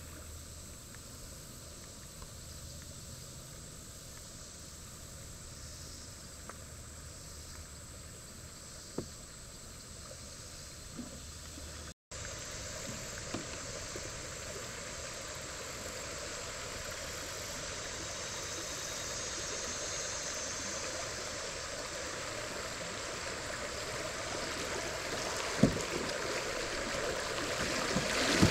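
Stream water flowing under a kayak, faint at first, then after a cut about halfway in, the louder rush of a riffle over shoals that builds toward the end. A few short sharp knocks stand out, the loudest near the end.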